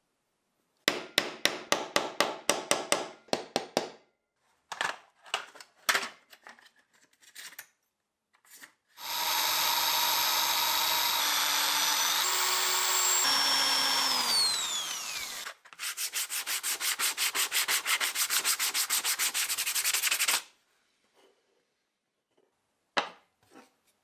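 Electric drill boring into a burl-wood knife handle scale: a steady motor whine that steps in pitch several times, then slides down as the drill spins down. Before and after it come runs of quick rhythmic rubbing strokes, several a second, on wood.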